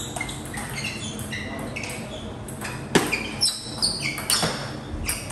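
Table tennis rally: the ball clicking sharply off bats and table about twice a second from about three seconds in, with short high squeaks heard throughout.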